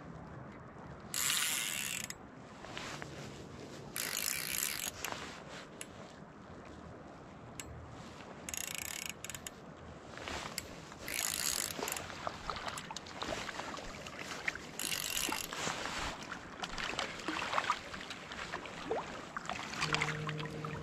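Fly reel's click-and-pawl drag ratcheting in about five short runs, each about a second long, with small clicks between, as a hooked trout is played in to the net.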